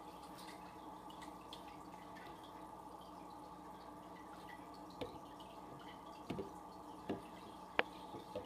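Faint steady hum and water trickling from an aquarium filter, with a handful of sharp drip-like clicks over the last few seconds, the loudest near the end.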